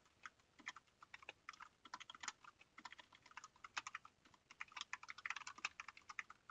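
Computer keyboard typing: a quick, irregular run of faint keystrokes.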